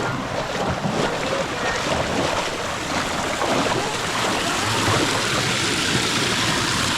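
Steady rush of water from a small waterfall, growing a little louder about four seconds in.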